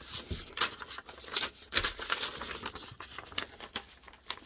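Sheets of paper rustling and crinkling as they are picked up and handled, a continuous run of irregular crackles.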